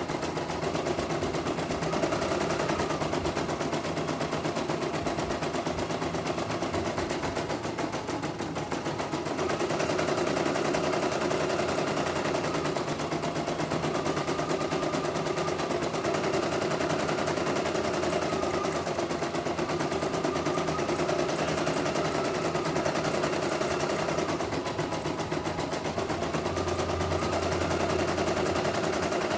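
CNY E900 portable computerized embroidery machine stitching a design, its needle running up and down in a rapid, even clatter under a faint motor whine. The stitching dips slightly about eight seconds in, then carries on as before.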